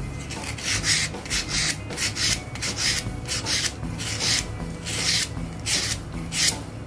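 Fine sandpaper on a sanding stick rasping along the cutting edge of a steel pet grooming scissors blade in repeated one-direction strokes, about one to two a second, sharpening the dull blade.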